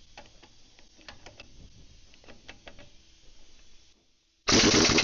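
Faint scattered ticks and clicks, then about four and a half seconds in a short loud burst from a 1-inch drive pneumatic impact wrench hammering on a stubborn nut.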